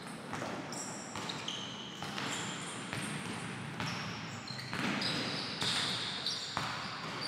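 Basketball bouncing on a hardwood court about once a second as it is dribbled, with sneakers squeaking on the floor.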